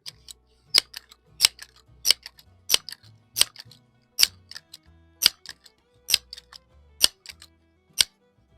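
Crosman 1322 multi-pump pneumatic air pistol being pumped: a sharp click on each stroke of the pump lever, about ten in a steady rhythm, roughly one every two-thirds of a second.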